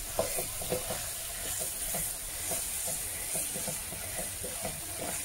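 Wooden spatula stirring macaroni pasta with vegetables and tomato sauce in a hot frying pan: repeated short scraping strokes over a steady sizzle.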